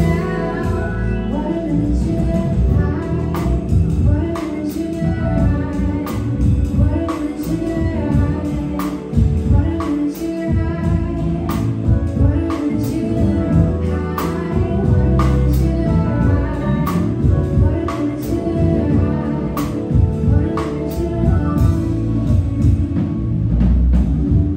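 Live band playing with a woman singing, over guitar, keyboard and a drum kit keeping a steady beat.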